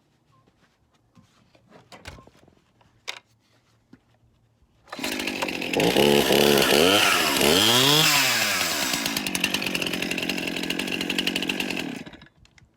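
Stihl MS 261 two-stroke chainsaw starting about five seconds in after a few faint clicks. It runs loud, is revved up and back down, holds a high steady speed, and cuts off abruptly just before the end.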